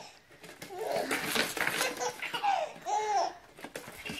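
Baby laughing in several high-pitched bursts, with pitch rising and falling in each burst.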